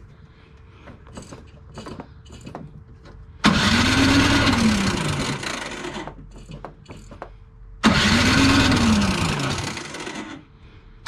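Toro 721 snowblower engine being cranked twice, each attempt about three seconds of loud whirring that rises then falls in pitch, without the engine catching: a no-start. Light clicks of tools being handled before the first attempt.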